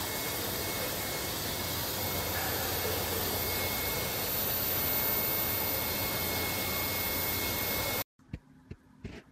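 Steady rushing noise with a thin high whine, cutting off suddenly about eight seconds in; then quiet with a few faint clicks.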